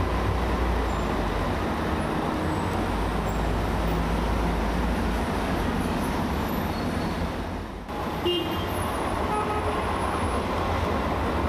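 Street traffic noise from queued cars with a low-floor tram running past on street track, a low rumble strongest in the first half. About eight seconds in, after a brief dip, a short horn toot sounds.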